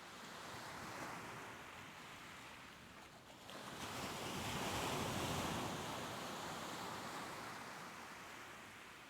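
Ocean waves washing onto the shore: a small wave about a second in, then a larger wave breaking about three and a half seconds in that swells and slowly recedes.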